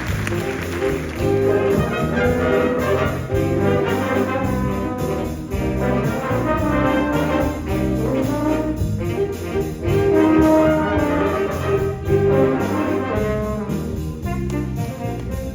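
High school jazz ensemble playing a big-band chart, with trumpets and trombones to the fore over a moving bass line and drums.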